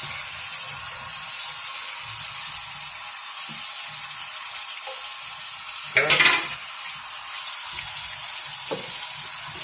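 Kitchen faucet running into a sink, a steady hiss of water while hands are worked and rinsed under the stream, with a short louder splash or clatter about six seconds in.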